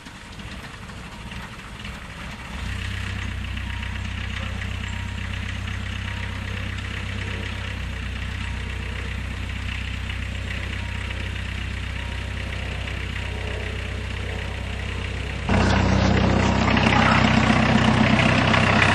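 Diesel van's Volkswagen diesel engine, taken from a 1992 Jetta, idling just after a cold start in hard frost. The sound builds over the first couple of seconds, then runs steadily, and turns abruptly louder about three-quarters of the way through.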